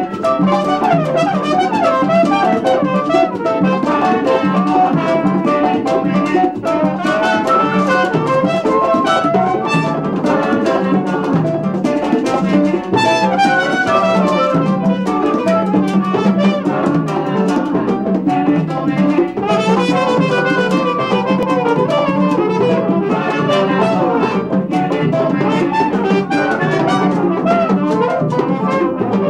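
A live Latin band playing, with trumpet and brass leading over congas and hand percussion.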